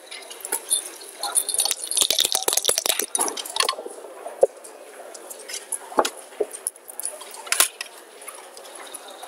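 Backgammon dice rattled in a cup and rolled onto the board, making a quick cluster of clicks about two seconds in. A few single sharp clacks follow as checkers are set down on the board.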